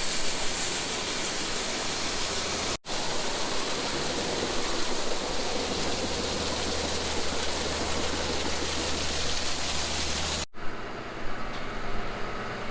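Steady loud rushing noise with a low hum underneath, breaking off about ten seconds in. It gives way to a quieter steady engine hum with a few faint knocks.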